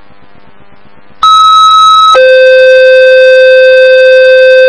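Two-tone sequential paging tones over a dispatch radio channel, heard through a scanner: a high steady tone for about a second, then a lower steady tone held for about three seconds. This is the alert that sets off the pagers of the unit being called out. A second of faint open-channel hiss comes before the tones.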